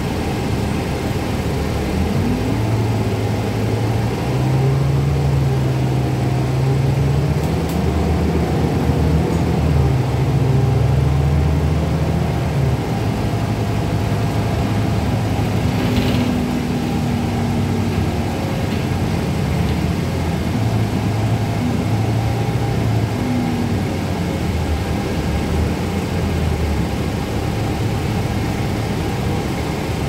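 Cabin sound of a 2012 Gillig Advantage low-floor transit bus under way: the engine drone climbs in pitch as the bus accelerates, drops about twelve seconds in, then rises again more briefly, over steady road rumble. A single short rattle or click sounds about halfway through.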